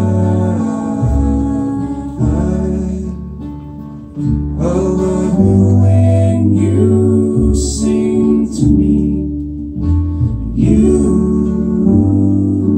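Live acoustic string band playing a slow song: strummed acoustic guitar, banjo and upright bass holding deep sustained notes, with voices singing.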